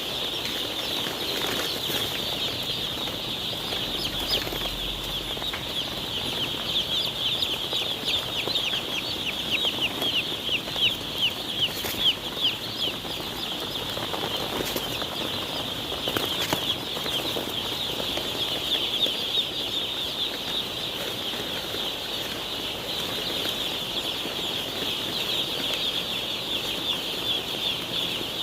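A large flock of day-old chicks peeping continuously in a brooder: a dense chorus of short, high, falling peeps that swells for a few seconds near the middle.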